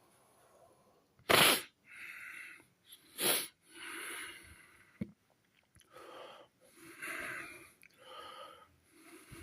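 A man's breath: two loud, sharp bursts about two seconds apart, then a run of quieter breaths roughly a second apart.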